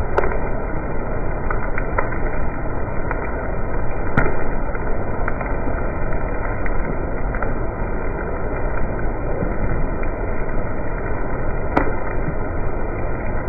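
Steady, muffled background noise with a few faint ticks and no high end, as in the slowed-down audio of a slow-motion phone clip.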